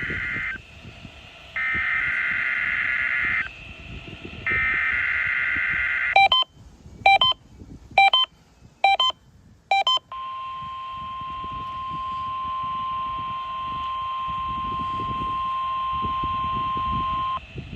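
NOAA Weather Radio alert signal received on a WX-100 weather radio over a steady radio hiss. It starts with three bursts of harsh, buzzy SAME digital header data, then five short beeps about a second apart. It ends with the steady single-pitch warning alarm tone held for about seven seconds.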